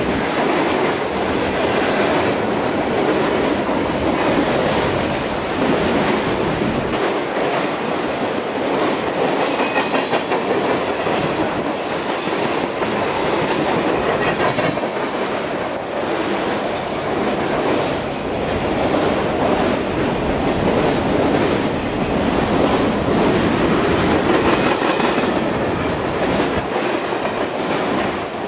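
Freight train cars (tank cars, covered hoppers and autoracks) rolling past close by, a steady noise of steel wheels running on the rails.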